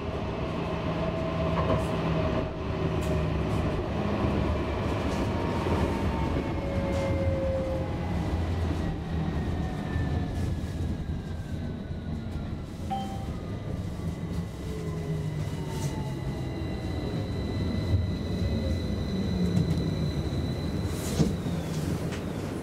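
A32 electric tram running, heard from inside the passenger car: a steady rumble of wheels on rail, with several electric motor whines gliding down in pitch and a thin high steady tone in the second half.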